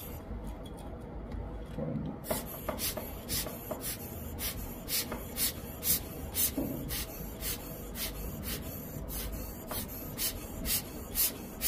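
A run of short, scratchy rubbing strokes on the ECU's circuit board, starting about two seconds in and going on at roughly two to three strokes a second.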